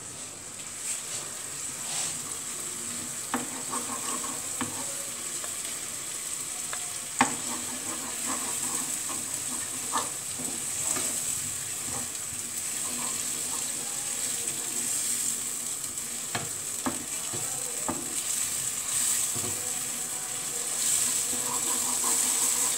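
Onion-and-spice masala sizzling as it fries in a nonstick frying pan, stirred with a wooden spatula: a steady hiss, with a few sharp knocks of the spatula against the pan.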